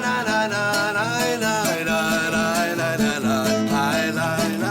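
Background music with plucked strings and a melody line that bends in pitch.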